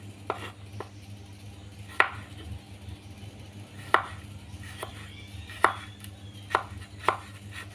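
Kitchen knife thinly slicing garlic cloves on a cutting board: separate sharp chops at uneven intervals, about eight in all.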